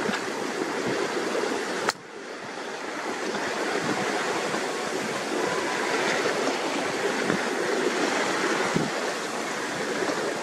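Water rushing and splashing along the hull of a Catalina 270 sailboat moving under sail, a steady hiss. About two seconds in there is a sharp click, after which the sound drops and slowly builds back up.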